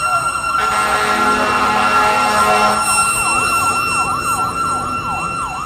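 Fire engine siren wailing in a fast yelp, rising and falling about three times a second over a steady high tone, with a louder, fuller horn-like blast from about half a second to three seconds in.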